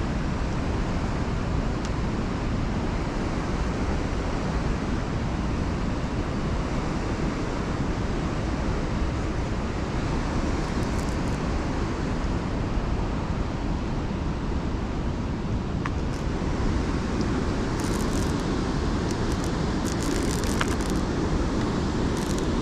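Steady rushing noise of wind and water on an action-camera microphone, strongest at the low end. A few short sharp clicks come in the last third.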